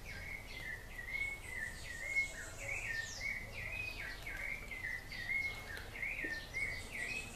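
A bird chirping over and over in the background, short rising-and-falling chirps two or three a second.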